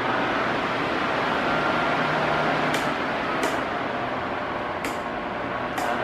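Arno Silence Force pedestal fan running, a steady rush of air over a faint motor hum, with four light clicks in the second half.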